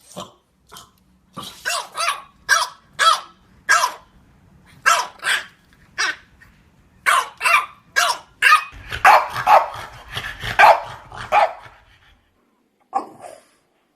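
French bulldog barking repeatedly in short, separate barks, about two a second, running into a faster, denser string of barks about nine seconds in, then stopping briefly before a single bark near the end.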